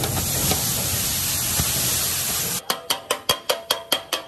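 Hissing sizzle on a hot flat griddle. About two and a half seconds in it gives way to rapid, even metal-on-metal clanging, about five strikes a second: two steel blades chopping kothu parotta on the iron griddle.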